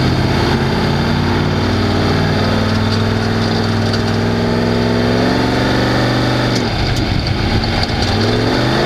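Off-road race vehicle's engine running hard, its pitch easing gradually downward, dropping briefly off throttle about seven seconds in, then climbing again as it accelerates near the end.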